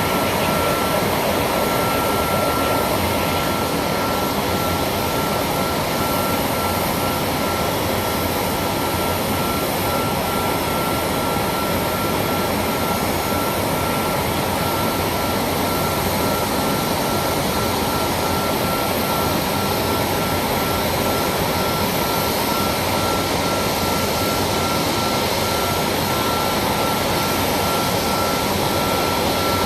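Boeing 737 MAX 8's CFM LEAP-1B jet engines running steadily, heard inside the cabin: an even rush of engine and air noise with a thin, steady whine on top.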